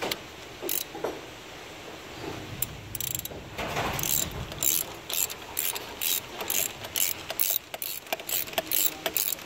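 Ratchet wrench clicking as it is worked back and forth, tightening the A/C compressor drive belt: a few scattered clicks, then from about four seconds in a steady run of about three clicks a second.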